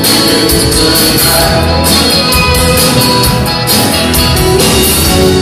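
Live band playing an instrumental passage of a Brazilian song, with acoustic guitar over a steady beat and no lead vocal.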